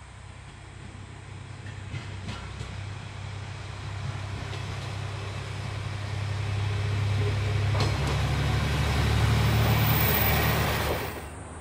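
Single-car diesel railcar approaching, its diesel engine running with a low steady drone that grows steadily louder as it nears, with a few clicks along the way. The sound cuts off suddenly near the end.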